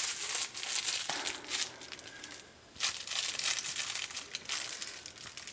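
Crinkly baby toy being rustled and shaken, a quick run of crinkling with a short pause near the middle.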